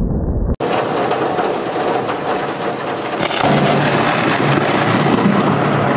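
Thunder rumbling during a thunderstorm. About half a second in it gives way to heavy rain falling, with thunder rumbling and crackling through it.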